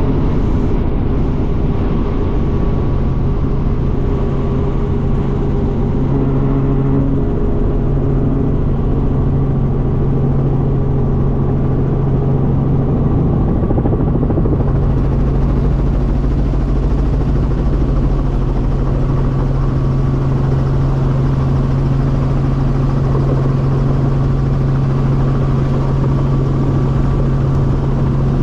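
Light helicopter in flight: engine and rotor running as a loud, steady drone with a constant low hum.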